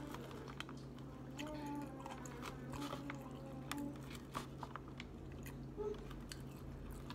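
A person chewing a mouthful of salad (leafy greens, bacon bits, chicken) with the lips closed. A fork picks at the food in a clear plastic clamshell container, giving many short clicks and taps.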